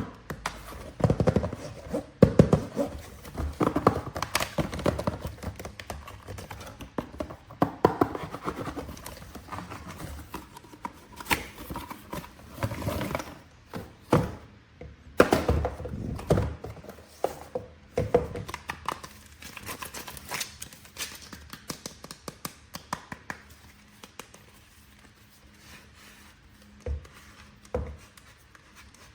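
Hands unboxing toy action figures: an irregular run of knocks, taps and rustling of packaging, thinning out near the end.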